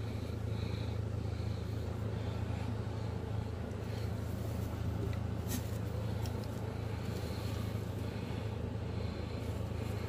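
A steady low mechanical hum throughout, with one sharp click about five and a half seconds in.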